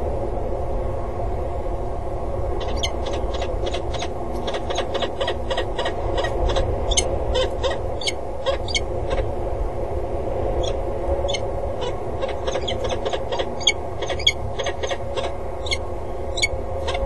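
Peregrine falcons calling in flight: a rapid series of short, sharp, high calls, several a second, starting about three seconds in and becoming more spaced out after about nine seconds, over a steady low hum.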